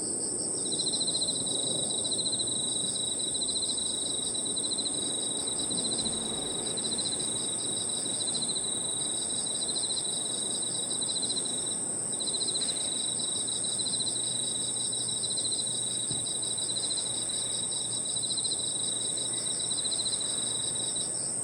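Crickets and other insects singing together: one steady high-pitched trill over lower pulsing chirps that stop briefly twice, with a low background hum.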